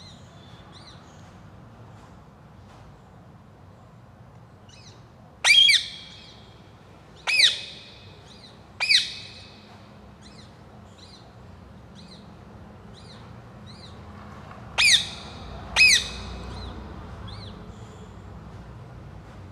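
A pet ringneck parrot giving five loud, short squawks, three spaced a second or two apart and then two close together later, with softer chirps between them.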